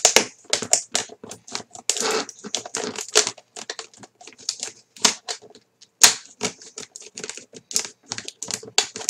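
Standard household scissors cutting through rigid sealed plastic clamshell packaging: an irregular run of sharp snips and cracks as the hard plastic gives way.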